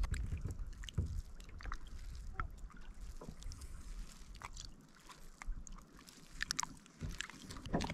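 Faint scattered taps, clicks and small splashes of a splake being handled in a landing net in a small boat, over a low rumble.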